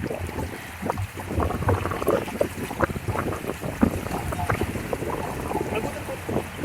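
Water splashing and slapping irregularly against the hulls of a Hobie Cat 16 catamaran under way.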